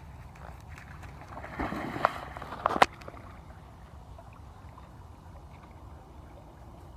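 Young Chesapeake Bay retriever splashing into the water off the bank: a burst of splashing with two sharp splashes about two and three seconds in, then only faint water sound as it swims off.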